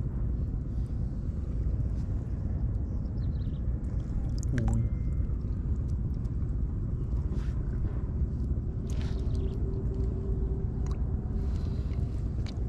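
Low steady rumble with a faint steady hum over it, a brief falling glide about four and a half seconds in, and a few faint taps.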